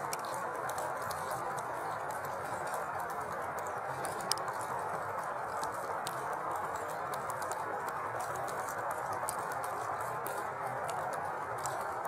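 Steady hiss of falling wet snow, with scattered light pattering ticks and one sharper tick about four seconds in.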